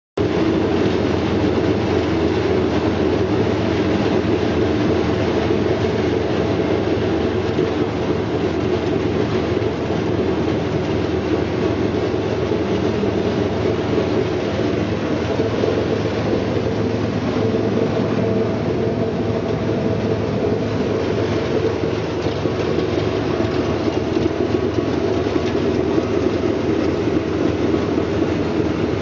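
Brush-roller vegetable washing and peeling machine running steadily, a continuous mechanical rattle over a low motor hum.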